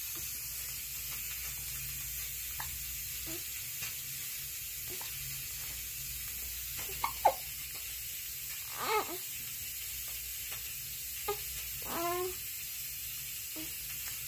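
A seven-week-old hiccuping: small soft clicks at irregular intervals of about a second. A few short, high-pitched squeaks come between them, the loudest about seven seconds in.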